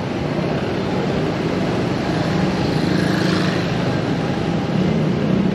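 Motorbike engine running at low speed in street traffic, heard from the rider's seat with road noise; the engine note grows a little stronger near the end.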